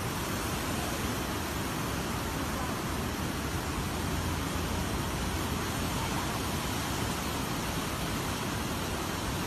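Muddy floodwater surging and breaking in waves along a riverbank, a steady rushing noise with no let-up.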